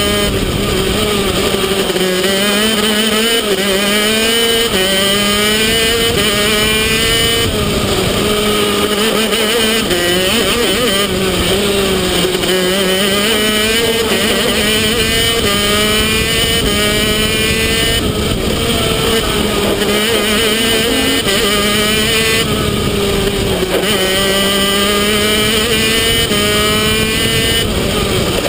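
Two-stroke racing kart engine heard on board at speed, revs climbing in long rising glides along the straights and dropping back into each corner, over and over.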